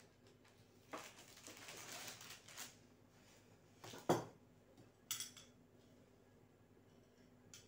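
Cutlery and dishes handled: a scraping sound about a second in, a sharp clink with a short ring just after four seconds, and a brief rattling clink a second later.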